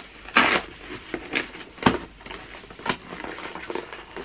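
Packaging crinkling and rustling as an Amazon parcel is handled and opened, in short irregular bursts, with a sharp click about two seconds in.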